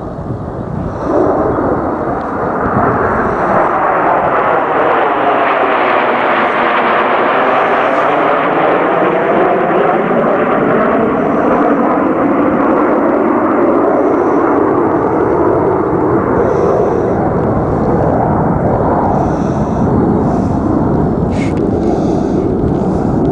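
A formation of Canadian Snowbirds CT-114 Tutor jets flying past, each with a single turbojet. The jet noise rises sharply about a second in and then holds loud and steady, with a slowly sweeping whoosh as the formation passes overhead and pulls away.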